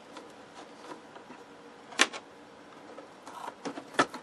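Handling noise as a metal front panel is worked loose from a wooden instrument case: light taps and rattles, with two sharp knocks about two seconds apart.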